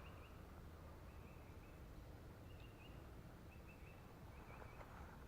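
Near silence: faint outdoor background with a few faint, short, high steady notes coming and going.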